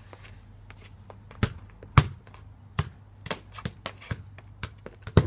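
Football being kicked and bouncing on patio paving slabs: a string of sharp thuds, the loudest about two seconds in and another near the end.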